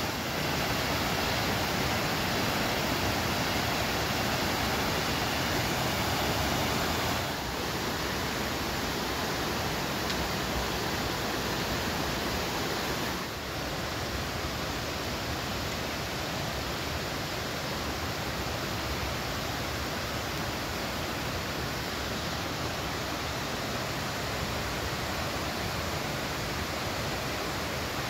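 Mountain stream rushing and splashing over rocks in a steady wash of water noise, a little quieter after about seven seconds and again after about thirteen.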